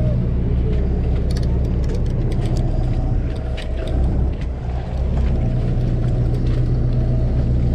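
Sportfishing boat's engine running, a steady low drone, with a few light clicks and taps from tackle handling about a second and a half to three seconds in.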